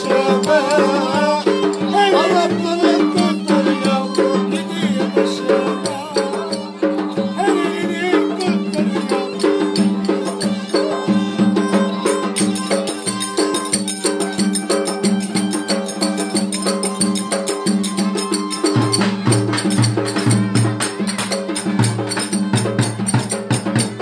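A violin, held upright on the knee and bowed, plays a fast folk dance tune over a quick clacking percussion beat. A deeper pulsing beat joins near the end.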